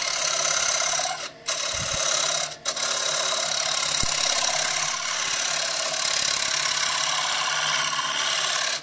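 Standard woodturning scraper cutting the outside of a spinning wooden platter blank on a lathe: a loud, steady scraping roughing cut that throws off shavings. The tool comes off the wood twice for a moment between one and three seconds in, and the cut stops abruptly at the end.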